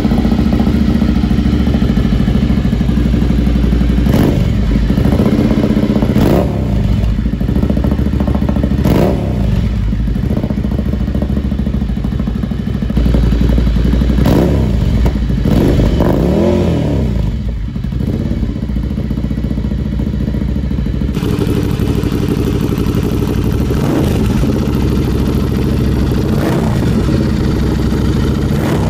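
Ducati Scrambler's air-cooled L-twin idling through an Akrapovic R6 slip-on exhaust remade for the bike, with repeated short throttle blips every few seconds that rise and fall in pitch.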